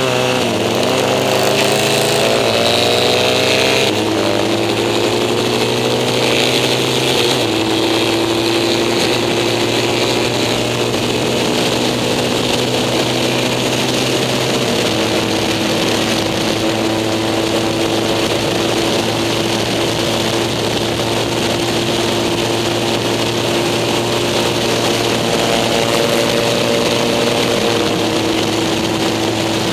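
Racing sidecar's engine heard from onboard under hard acceleration: its pitch climbs steadily, with gear changes about four and seven seconds in, then it holds a steady high pitch at speed down the straight.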